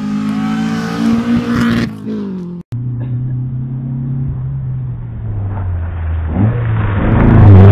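Historic rally car engines under hard throttle: one car's engine note falls away as it goes by, then, after a cut, a second car approaches with its engine growing steadily louder near the end.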